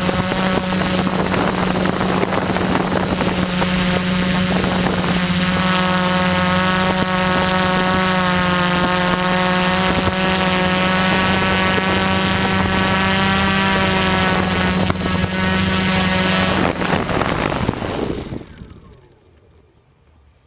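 Quadcopter's electric motors and propellers running steadily at close range, a constant hum. A second, engine-like tone joins in the middle for several seconds. The motors wind down and stop a couple of seconds before the end.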